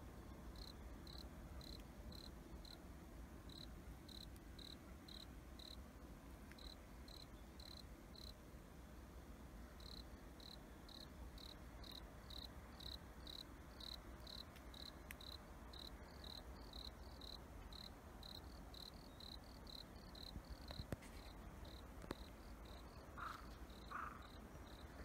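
Faint cricket chirping in a steady rhythm, about two short high chirps a second, with a pause of a second or two partway through. Near the end, three short, louder sounds lower in pitch come in over it.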